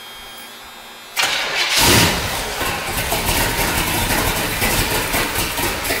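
1976 Corvette's small-block V8 catching and starting about a second in, then running loud through its side pipes, easing off near the end. The engine is started cold with a choke that doesn't work, and it has a bad knock.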